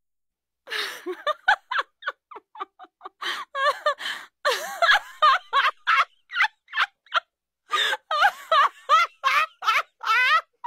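A baby laughing and giggling in quick, high-pitched bursts with short breaths between them.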